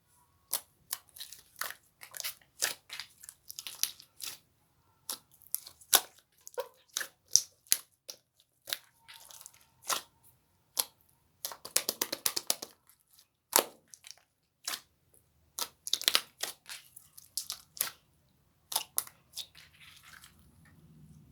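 Slime being squeezed and poked by hand: a string of sharp clicks and pops from trapped air, with two dense crackling runs, one about halfway through and one about three-quarters through.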